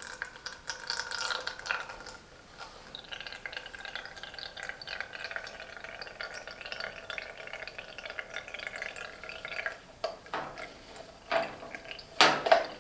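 Water trickling and dripping from an opened radiator bleed valve into a bleed-box collector, with a few sharper clicks in the last few seconds.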